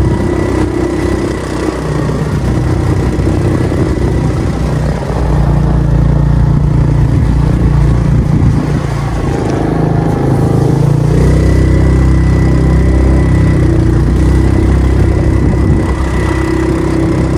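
Motor vehicle engine running while being driven, its pitch shifting with the throttle, with a change in note about eleven seconds in.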